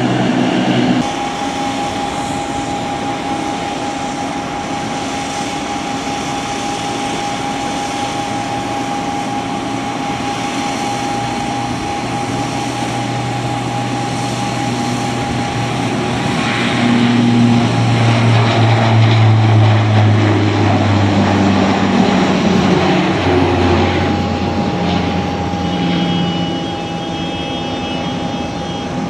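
Bombardier Dash 8 Q400 turboprop airliner, its two Pratt & Whitney Canada PW150A engines with six-bladed propellers running up to takeoff power: a steady propeller drone with a low hum. It grows louder about halfway through as the aircraft makes its takeoff run, then eases near the end as it climbs away.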